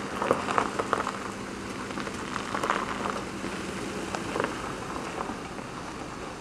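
A Volvo sedan's tyres crunching slowly over a gravel and sand lot, giving an uneven crackle of small stones, over a faint low engine hum that fades about four seconds in.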